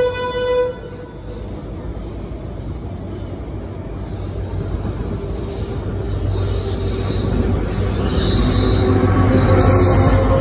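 A locomotive horn holds one steady note and cuts off under a second in. Then an arriving locomotive-hauled passenger train approaches, its rumble and wheel noise building steadily until the locomotive passes close near the end.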